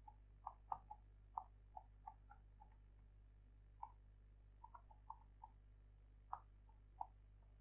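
Faint computer keyboard keystrokes as text is typed, about twenty irregular clicks with a short pause about three seconds in, over a steady low electrical hum.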